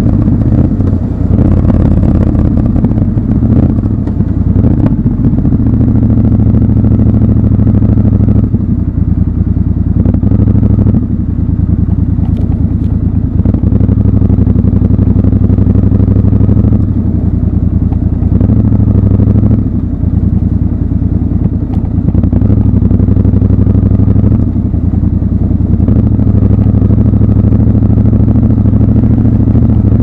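Triumph Scrambler 1200 XC's 1200 cc parallel-twin engine running steadily in city riding. Its note shifts in pitch and strength several times as the rider changes throttle.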